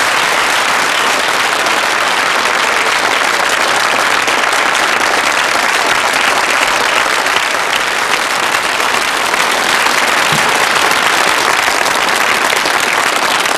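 A large studio audience applauding, with dense, steady clapping throughout.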